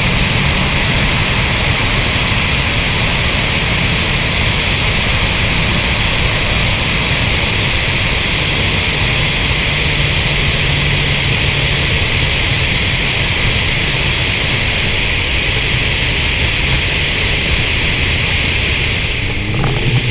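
Steady wind rush and road noise from a Volkswagen GTI MK6 cruising at constant speed, as heard from a camera on its hood, with a low engine drone underneath.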